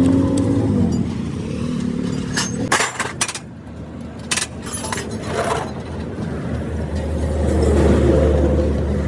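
Truck and traffic engines running on a busy road, one rising in pitch near the end. In the middle come a handful of sharp metallic clanks and knocks, irregularly spaced.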